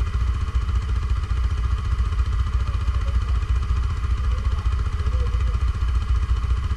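Stels Guepard 850 ATV engine running steadily with a dense, even low rumble.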